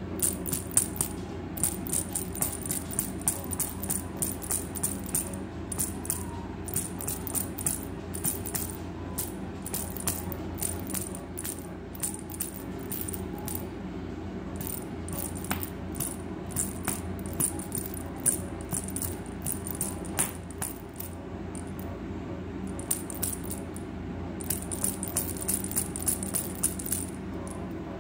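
Motorised flopping fish cat toy wiggling on a wooden floor: its motor hums steadily under fast clicking and rattling as the body flaps, in bursts with several short pauses.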